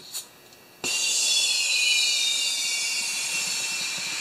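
Compressed air hissing through an air chuck into the inner tube of a small yard tractor tire. It starts suddenly about a second in and runs steadily, with a faint whistle slowly falling in pitch, as the tube is inflated to seat the tire bead.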